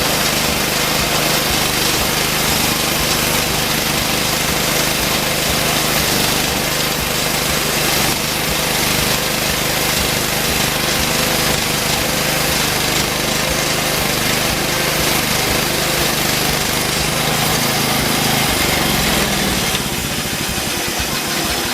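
Homemade band sawmill's gas engine running steadily while the band blade cuts through a hard post oak log. Near the end the engine note shifts and the sound drops a little.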